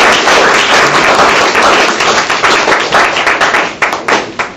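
Audience applauding, many hands clapping at once, thinning to a few last claps and dying away near the end.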